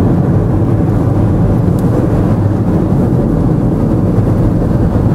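Steady low rumble of a car driving at road speed, heard from inside the cabin: tyre, engine and wind noise.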